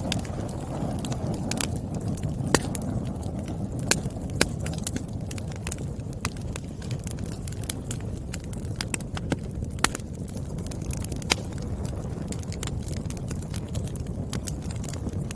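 Burning firewood crackling: irregular sharp snaps and pops, a few of them louder, over a steady low rush of the fire.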